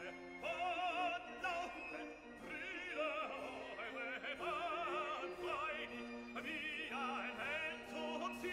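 Background music: operatic singing in a high voice with wide vibrato over sustained orchestral accompaniment.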